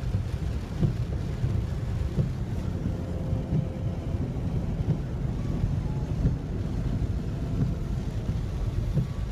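Steady low rumble inside a car cabin as it moves through heavy rain and floodwater, with small irregular knocks.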